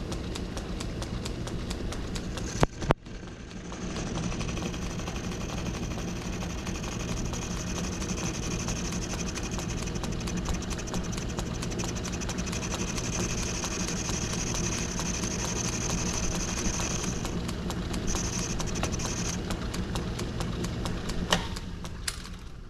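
Metal lathe running, turning a small piece down: a steady motor hum with a high whine while the tool is cutting. There are two sharp clacks about two and a half seconds in, and the lathe dies down near the end.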